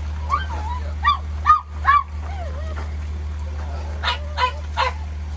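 Small dogs in crates barking in short, high yips: a cluster of four in the first two seconds, then three more about four seconds in, over a steady low hum.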